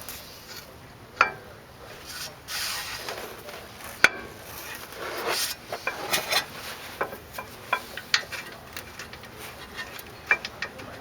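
Hand tools and brake parts being handled: a scattered series of sharp metallic clinks and taps, the loudest about a second in and about four seconds in, with bouts of scraping and rubbing between them.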